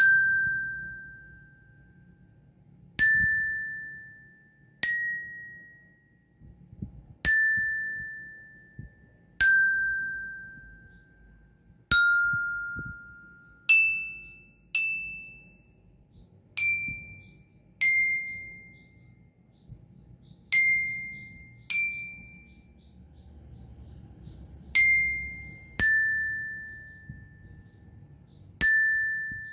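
Aluminium-barred marching bell lyre struck with a single mallet, one note at a time, picking out a slow melody. About fifteen bright, ringing notes a second or two apart, each fading out before the next.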